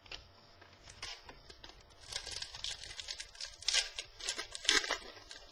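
Trading cards and their packaging being handled: dry rustling, sliding and scraping of card stock, thickest in a run of quick rustles about two seconds in and again near four to five seconds.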